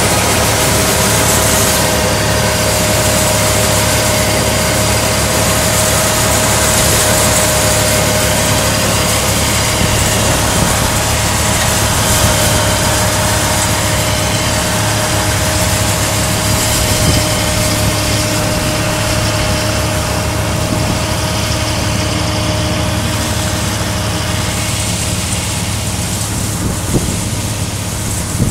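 Farm tractor engine running steadily at harvest work, with a steady whining tone over a broad rushing noise. The whine fades and the whole sound grows slightly quieter near the end.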